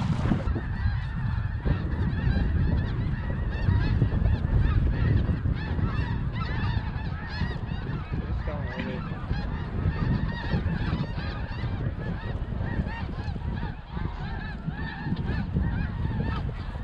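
A large flock of snow geese calling overhead: many overlapping high-pitched honks, with wind rumbling on the microphone.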